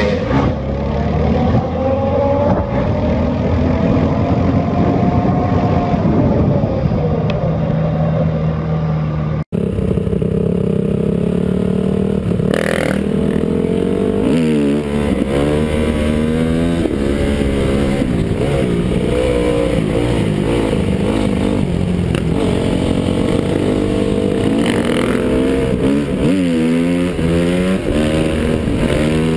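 Dirt bike engines heard from the rider's own bike, running and revving, the pitch rising and falling with throttle and gear changes. About nine and a half seconds in there is a sudden cut to another bike, which revs up and down repeatedly as it accelerates and shifts.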